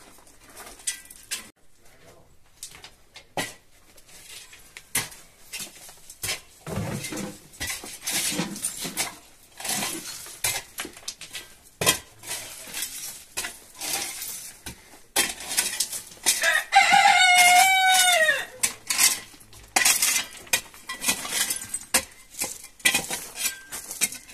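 Scraping and sharp clinks of a shovel and a mattock working gravel and broken rock, in irregular strokes. About two-thirds of the way in, a rooster crows once: one long crow that falls in pitch at the end and is the loudest sound.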